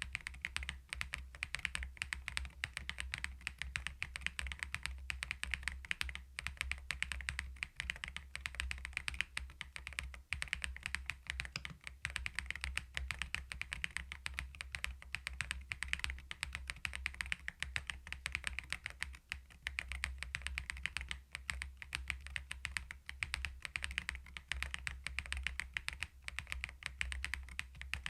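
Continuous fast typing on a CoolKiller VIVID67 full-aluminium mechanical keyboard fitted with its stock Peach switches. The key strokes are dense and even.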